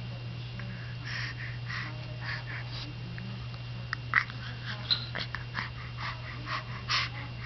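Baby making its new noise: a string of short, breathy, high-pitched sounds, several a second, a few of them sharper and louder, over a steady low hum.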